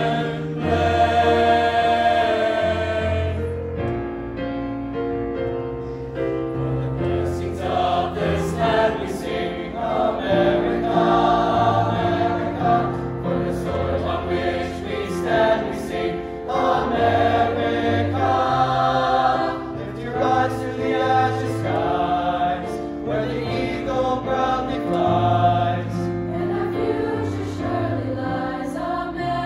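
Mixed high school choir singing in parts, held notes changing every second or so, over an accompaniment with a sustained low bass line and faint regular percussive ticks.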